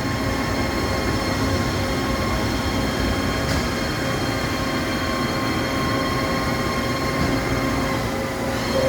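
Awea/Yama Seiki SP3016 bridge-type vertical machining center's X-axis table traversing under power: a steady mechanical running with a constant whine of several high tones. Near the end the high tones drop out briefly and come back.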